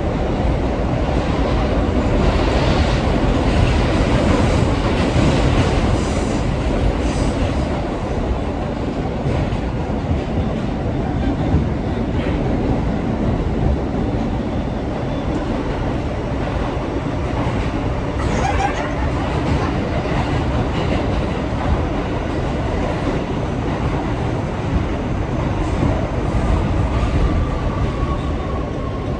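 Inside a moving New York City 6 train subway car: the steady rumble and rattle of the car running on the track, with a thin whine of wheel squeal near the end.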